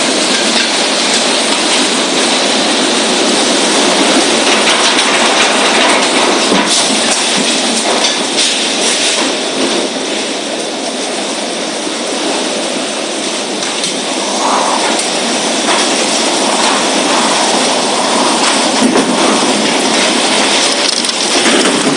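Strong tornado wind with heavy rain: a loud, steady rushing noise that eases a little around the middle and builds again toward the end.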